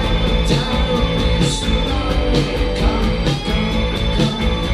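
Live rock band playing amplified on stage: electric guitar and drum kit with a steady beat of drum and cymbal hits about twice a second.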